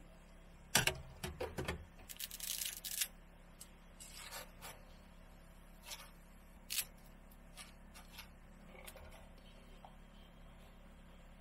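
Cooking at a gas hob: a sharp metal knock about a second in as the steel pot lid is handled, with a quick run of clicks after it and a brief rustling noise, then scattered light clicks and clinks of kitchen handling as food is tipped into the pot.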